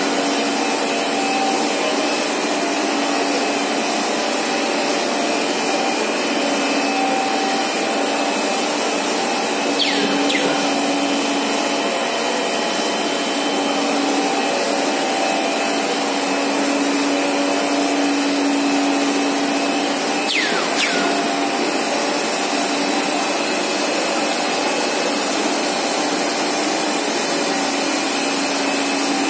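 Steady noise of a 2000 mm cast stretch film extrusion line running, with a constant hum. A short falling whistle sounds twice, about ten seconds apart.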